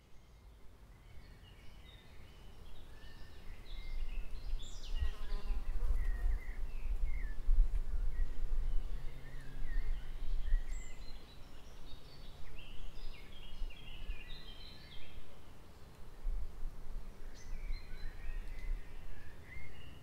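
Birds singing in woodland: many short chirps and quick rising and falling notes, over a low rumble that swells a few seconds in.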